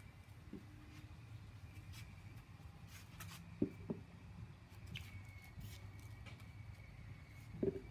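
Faint outdoor ambience: a low steady hum with a few short, sharp squeaks, two close together about midway and one near the end.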